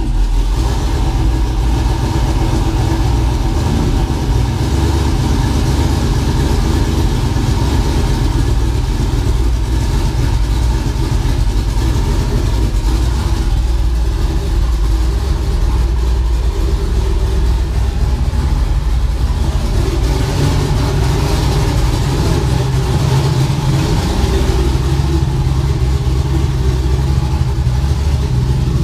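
Twin-turbo LS V8 idling steadily just after start-up, heard from the driver's seat. It is running well now that a new 2.5-bar MAP sensor reads correctly.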